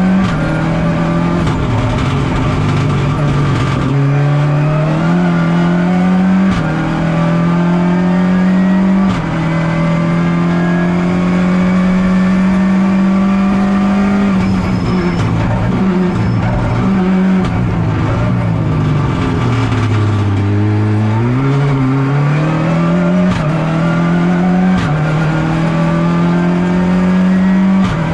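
Rally car engine heard from inside the cabin at full stage pace, its pitch stepping up and down again and again as the driver shifts gears. About two-thirds of the way through, the revs fall low under braking and downshifts, then climb back as the car accelerates away.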